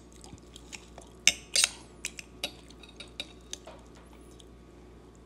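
Metal fork and knife clinking and scraping against a dinner plate while cutting food: scattered light clicks, the loudest pair about a second and a half in.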